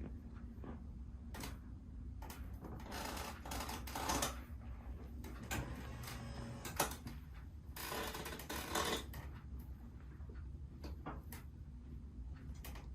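Joint cracking during a manual chiropractic-style adjustment: scattered sharp clicks and one loud pop about seven seconds in, with two longer stretches of rubbing noise around three and eight seconds in.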